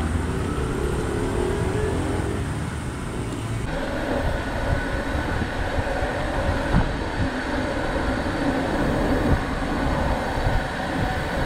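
Road traffic noise: a steady rumble of vehicles and wind, with small knocks, changing abruptly about four seconds in.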